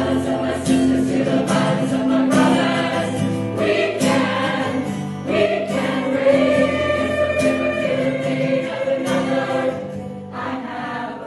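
Choir singing a worship song over instrumental accompaniment, with long held notes, easing down in level near the end.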